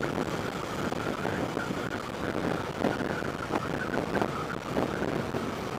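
Wind buffeting the microphone and road rush while riding a Honda Click 125i scooter at speed, its engine running steadily underneath with a faint wavering whine.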